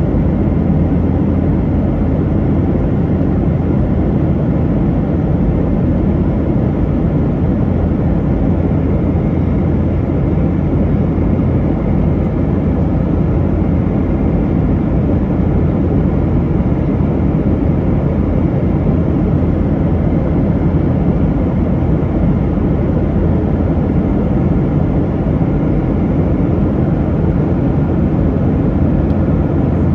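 Steady cabin noise of a Boeing 737-900 in flight: an even, deep rush of engine and airflow sound with no changes.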